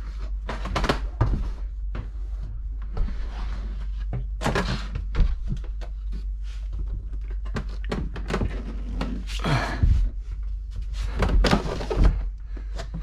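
Hollow thunks, knocks and scraping as a prefab Delta Classic 400 shower pan is handled and set down into its alcove onto a bed of construction adhesive. The knocks come irregularly, loudest about five seconds in and again near the end.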